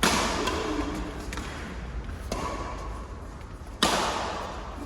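Badminton rally: rackets striking the shuttlecock four times, roughly a second apart, each sharp hit echoing in a large hall.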